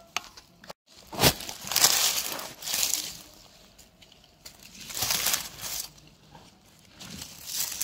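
Rustling and crunching in dry forest-floor leaf litter and twigs, in several separate bursts about a second apart.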